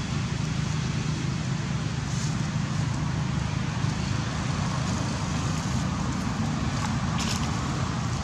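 Steady low rumbling background noise, with a few faint short ticks about two seconds in and again around seven seconds.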